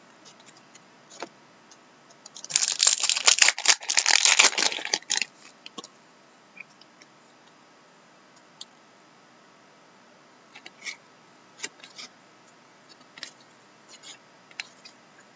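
Foil trading-card pack wrapper crinkling loudly for a few seconds as it is torn open, followed by scattered light clicks and ticks of cards being handled and slid.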